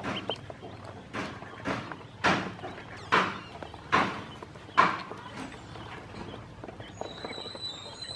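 Ducklings splashing and dabbling in a shallow plastic basin of water: seven sharp, irregular splashes in the first five seconds, then quieter movement, with a faint high steady trill near the end.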